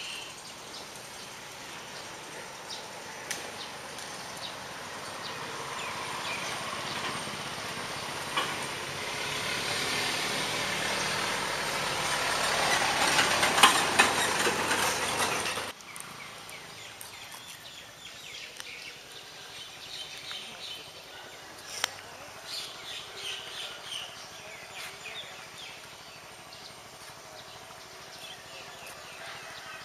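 Noise of a motor vehicle on the road, growing louder over about ten seconds and cutting off suddenly about halfway through, followed by quieter outdoor ambience with faint bird chirps.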